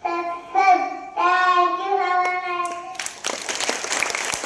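A child singing a few sustained, held notes, ending about three seconds in, followed by an audience breaking into applause.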